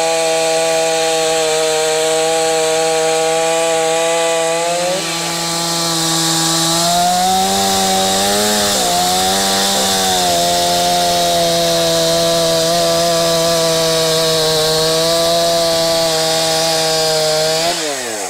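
Gas two-stroke Stihl chainsaw running at full throttle, bucking an oak log. Its pitch wavers for a few seconds midway as the bar loads in the cut, then falls away near the end as the throttle is let off.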